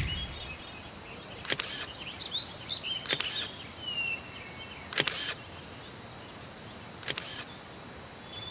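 Smartphone camera shutter sound as selfies are taken: four short clicks about two seconds apart. Birds chirp faintly between them.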